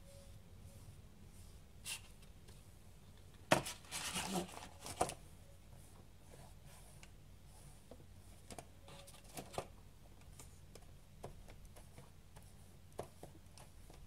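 Quiet handling and painting sounds: soft scrapes of a paintbrush on a cardboard box, scattered light taps, and a louder brief rustle and knock about four seconds in as the box is moved on newspaper.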